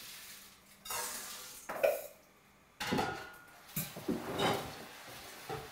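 Kitchen dishes and utensils clattering and clinking in a handful of separate knocks, the loudest about two seconds in.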